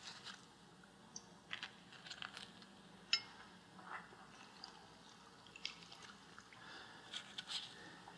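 Faint, scattered crisp crackles and light clicks of freshly deep-fried brik pastries being handled on a paper-towel-lined plate, the sharpest click about three seconds in.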